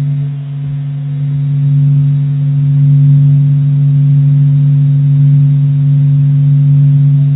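NASA's sonified "sound of the sun": a deep, steady drone with a fainter second tone above it, swelling a little over the first couple of seconds and then holding.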